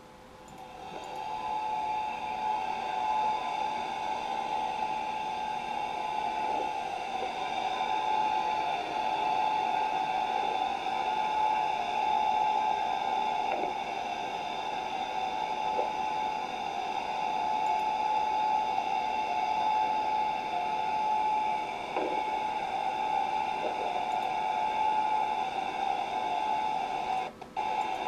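A ski boat's engine and propeller picked up underwater by a homemade hydrophone, heard as replayed from a camera recording of a small guitar amp through speakers: a steady hum with one strong mid-pitched tone and several fainter higher tones, fading in about a second in.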